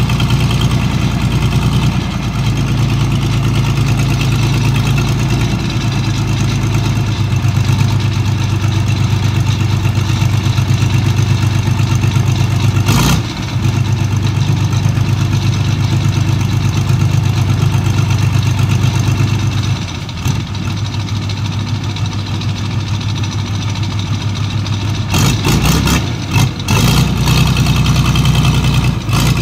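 Engines of dredging machinery running steadily: a continuous low diesel-like drone from the pontoon suction dredge's pump engine and the excavator working beside it. The drone eases and swells slightly a couple of times, with a sharp knock about halfway through and a few clanks near the end.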